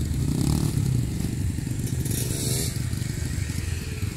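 Off-road dirt bike engine running at low revs, with a short rise in pitch about two and a half seconds in.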